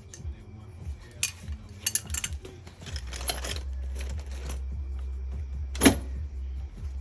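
Metal clicks and clinks of a pressure-washer hose repair fitting and clamp being worked on by hand. There are a few short rattles, then a single sharp click near the end that is the loudest. A steady low hum starts about three seconds in.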